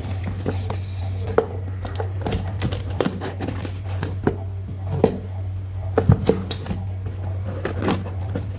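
A plant parcel being opened and its packaging handled: irregular crinkles, clicks and snips, over a steady low hum.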